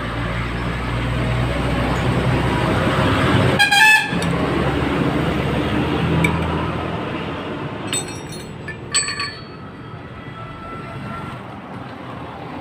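Low rumble of passing vehicle traffic with a short horn toot about three and a half seconds in; the rumble fades, and a few sharp metallic clinks follow near the middle.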